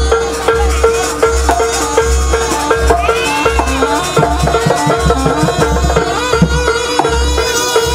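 Live Jaranan ensemble music: a low beat about every two-thirds of a second under a repeating gong-like note and a wavering melody, with a run of quick drum strokes in the middle.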